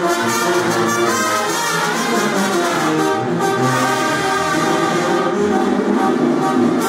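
Oaxacan brass band (banda) playing a tune, with horns over a low bass line that comes in about halfway through.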